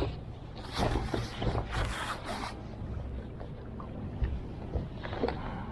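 Wind buffeting the microphone at the seashore, with a stretch of rushing, crackling noise from about one to two and a half seconds in and a few short crackles near the end.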